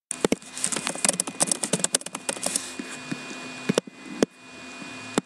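Typing on a computer keyboard: a quick run of keystrokes for about three seconds, then a few single key presses.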